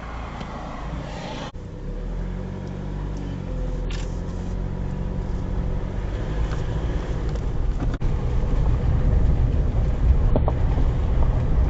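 Car driving along a road: a steady engine drone and road noise that grow gradually louder.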